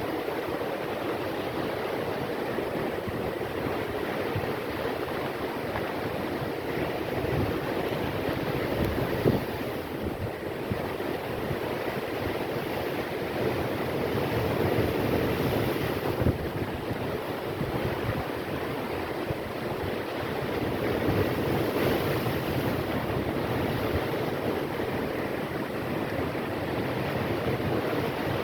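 Storm waves surging and crashing against an embankment, a continuous rushing wash that swells and eases, with wind buffeting the microphone. Two brief knocks stand out, about nine and sixteen seconds in.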